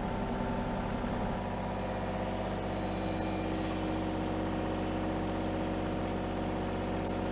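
Kubota mini excavator's diesel engine running steadily under the operator's control.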